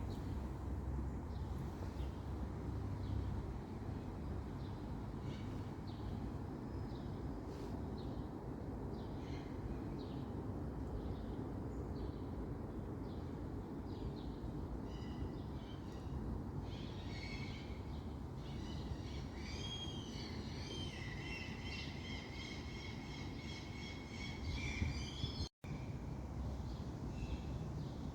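Small birds chirping over a steady low rumble, building about halfway through into a fast, dense song of quickly repeated high notes. The sound drops out for an instant near the end.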